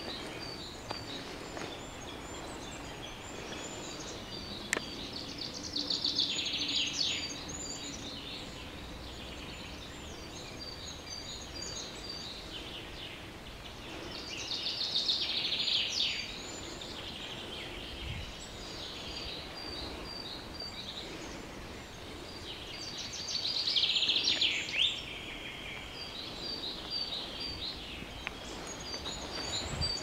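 Forest songbirds singing: high, thin, short call notes repeat throughout, and a louder song phrase of rapid notes lasting about two seconds comes three times, roughly nine seconds apart, falling at its end.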